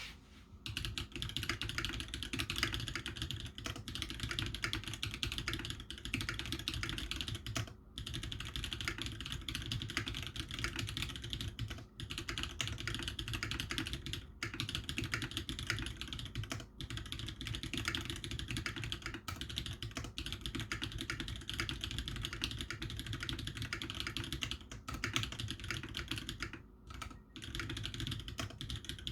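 Steady, fast typing on a TX65 v2 mechanical keyboard with tactile Holy Panda switches, the keystrokes clacking in dense runs broken by a few brief pauses.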